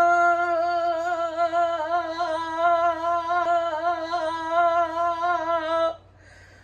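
A woman singing one long held note with a wavering vibrato, belted out loud, that cuts off suddenly near the end.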